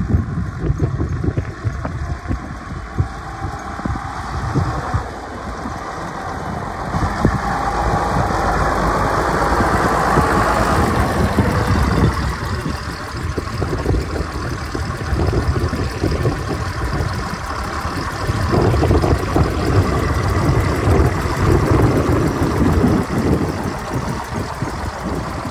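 Case IH Maxxum 5150 tractor's six-cylinder diesel engine running, getting louder as the tractor comes closer, then idling steadily close by.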